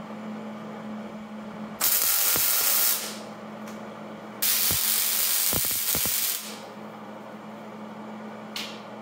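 Miller MIG welder arc welding on a steel table top: two bursts of steady crackling sizzle, the first about a second long and the second about two seconds long. A steady low hum runs underneath.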